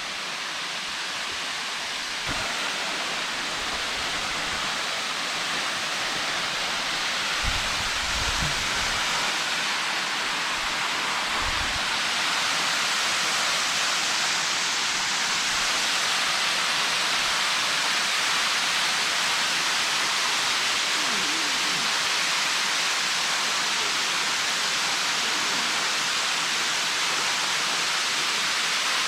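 Waterfall rushing: a steady hiss of falling water that grows louder over the first dozen seconds, then holds. A few brief low thumps come about eight and eleven seconds in.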